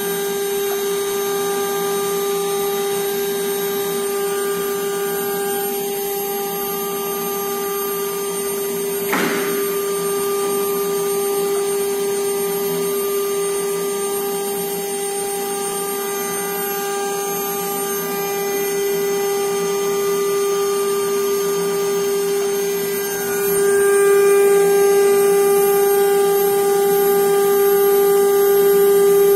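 Spindles of a 1325 double-spindle CNC router running with a steady high whine, with one brief knock about nine seconds in; the whine grows louder about 23 seconds in.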